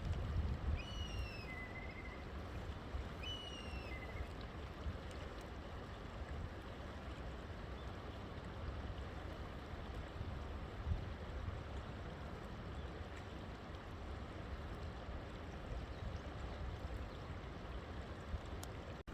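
River water running steadily, with a strong low rumble. A bird calls twice in the first few seconds, each call a short downward-sliding whistle followed by a brief lower note.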